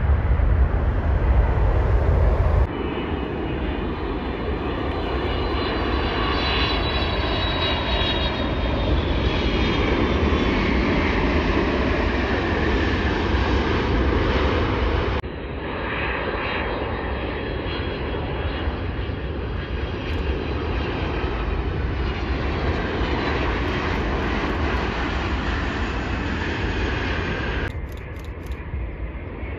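Jet aircraft engines at a runway, in several short cuts. First a heavy low rumble from a C-17 military transport lifting off, then the steady roar of a twin-engine widebody airliner with a high engine whine that slowly falls in pitch. The sound changes suddenly twice where the recording cuts.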